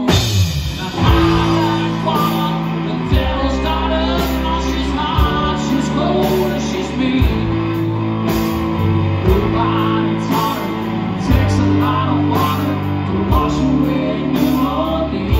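Live band playing a country-rock song loud on electric guitars, bass guitar and drum kit, the drums striking hard right at the start.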